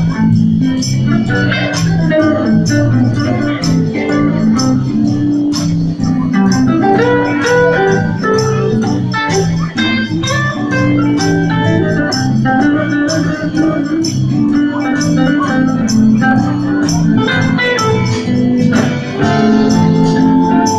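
Live band playing amplified music: two saxophones over an organ-sounding electric keyboard and electric guitar, with a moving low bass line and regular high cymbal-like ticks keeping time.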